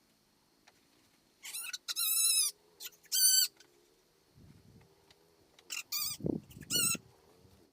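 High-pitched animal calls: about six short, wavering cries in two clusters, with a couple of low muffled thuds between them.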